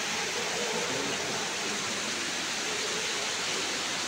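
Heavy monsoon rain falling steadily, a dense, even hiss.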